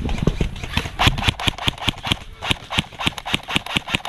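Quick, even running footsteps with gear rattling in time, about three or four strides a second, starting about a second in.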